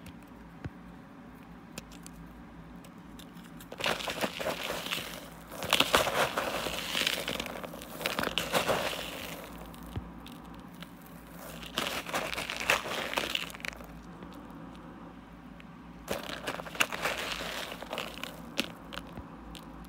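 Fingers digging into and squeezing crushed mothball granules and whole mothballs, a grainy crunching crackle. It comes in several bursts of a few seconds each, with quiet pauses between.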